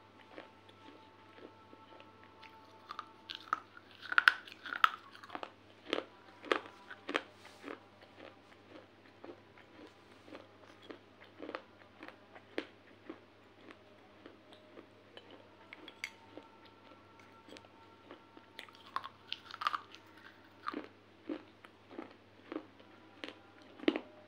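Crunching and chewing of brittle baked-clay (terracotta pot) shards: irregular sharp crunches and snaps about one or two a second, with clusters of louder crunches about four seconds in and again near twenty seconds.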